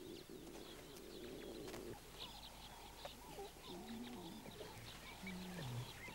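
Birds calling: small birds chirp repeatedly, with low cooing notes about four seconds in and again near the end, the last one stepping down in pitch. A low rough rumble fills the first two seconds and then stops.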